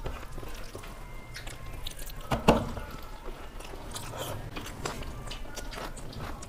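Close-up eating by hand: wet chewing and lip-smacking as rice and curry are eaten, with many small clicks of fingers mixing rice on plastic plates, and one sharper click about two and a half seconds in.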